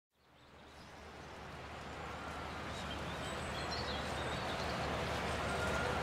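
City park ambience fading in: a steady hum of distant city traffic with a few short bird chirps.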